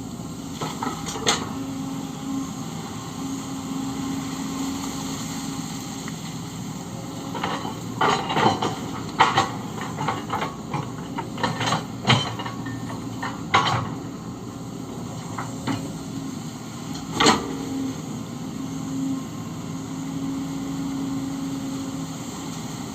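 Kobelco SK-130 hydraulic excavator running at a steady engine note. In the middle stretch come a dozen or so sharp metallic clanks and knocks, typical of the bucket and its linkage at work.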